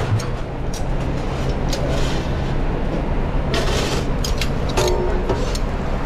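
Steady low hum and rush of a busy commercial kitchen, with light clicks of metal tongs at a charcoal grill and a short metallic scrape about five seconds in.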